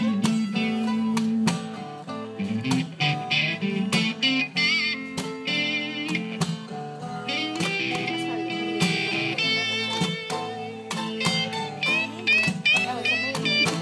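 Small string band playing an instrumental intro: acoustic guitar and mandolin with an electric lead guitar bending notes, over a steady clicking beat from a washboard.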